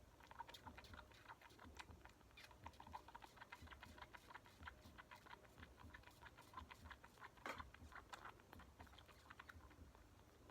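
Bottle-fed kitten suckling from a feeding bottle: faint, rapid wet clicks and smacks at the nipple, several a second, dying away about a second before the end.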